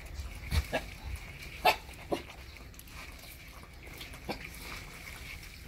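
A group of young puppies eating together from one pile of food: eating noises with a few short sharp sounds scattered through, the loudest about a second and a half in.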